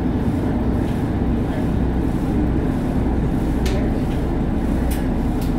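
Passenger ferry's engine running steadily under way, a constant low drone, with a few short clicks in the second half.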